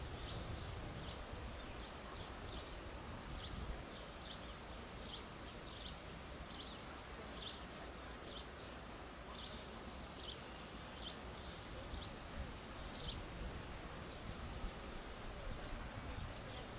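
Small birds chirping in short calls repeated about every half second, with a brief higher whistled call about fourteen seconds in, over a faint low rumble.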